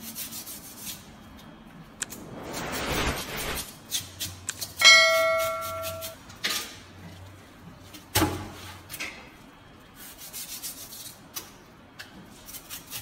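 Steel knife blades scraped against each other as a large fish knife is honed, in several rasping strokes with knocks between them. About five seconds in, the blades strike with a sharp metallic clang that rings for about a second.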